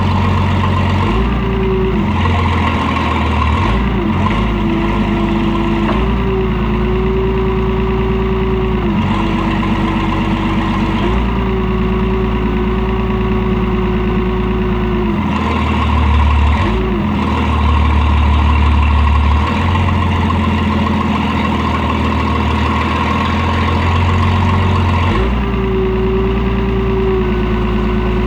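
IH 3616 backhoe's engine running steadily while its hydraulics are worked, the engine note shifting in pitch and load every few seconds as the controls are moved.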